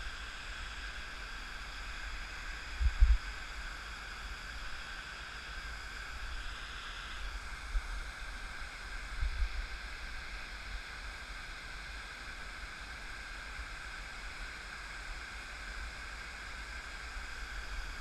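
Steady rush of water pouring down a dam's stepped concrete spillway, with a few brief low thumps about three and nine seconds in.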